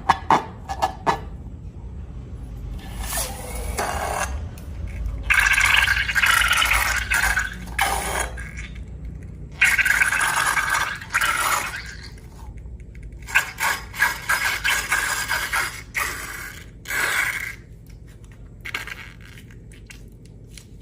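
Scraping and crackling from slime-making materials being handled, in bursts of one to two seconds with short gaps and a few sharp clicks.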